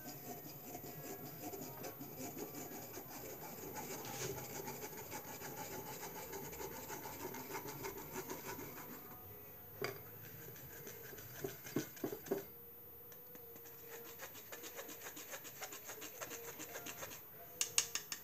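A spoon scraping and stirring orange pulp around a strainer in quick rubbing strokes, pushing the juice through, with a few sharper clicks of the spoon against the strainer about ten and twelve seconds in and near the end.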